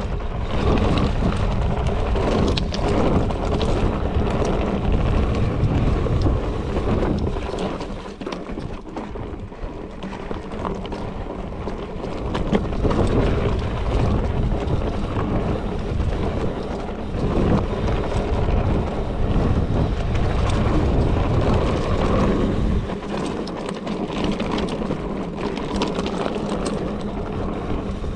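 Wind buffeting the microphone of a mountain bike's point-of-view camera, mixed with the tyres rolling over a packed dirt-and-gravel trail and light rattling from the bike over bumps. The low wind rumble eases for a few seconds about a third of the way through and again near the end.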